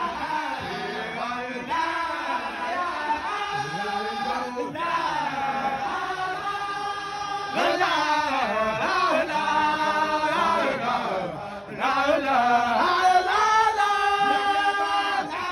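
Group of men chanting a Sufi zikr together at full voice, in long held phrases with brief breaks between them.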